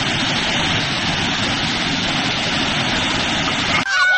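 Waterfall rushing: a steady, loud wash of falling water that cuts off suddenly near the end, where a voice comes in.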